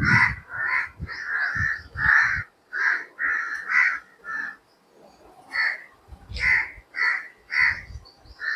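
Crows cawing in a rapid string of short, harsh calls, about two a second, pausing for a second or so midway before starting up again.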